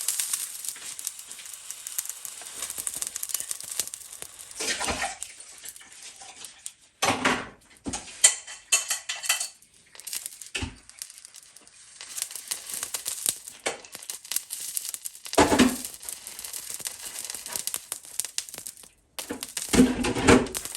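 Water hissing and sizzling off a freshly washed wok as it dries on the heat, with several short clatters of pans and utensils.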